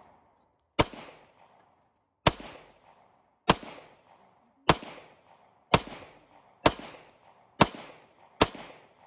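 Glock 22 pistol in .40 S&W fired in slow single shots, about nine in all, each a sharp crack followed by a short echo. The shots come about a second apart at first and a little faster towards the end.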